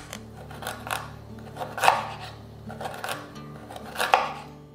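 Kitchen knife cutting white radish on a wooden cutting board: a series of irregular chops, the sharpest about two seconds in and near the end.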